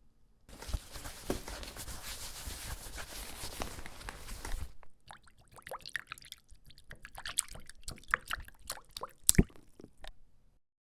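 Foley sound effects with a wet character: about four seconds of dense hissing noise that cuts off abruptly, then a run of irregular clicks and drips for about five seconds.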